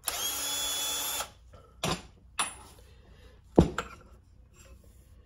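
A cordless drill runs steadily for about a second, spinning an Allen bit to back the damper rod bolt out of the bottom of a motorcycle fork leg. Then come a few sharp metal knocks and clunks, the loudest about three and a half seconds in, as the fork tubes are handled on the bench.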